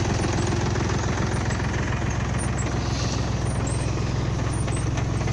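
Farm tractor's diesel engine running steadily under load as it pulls a mounted three-row bulb planter, with a rapid, even knocking beat.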